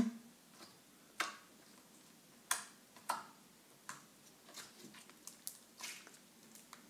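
Glitter slime being worked by hand: a faint, irregular series of small squishes and clicks.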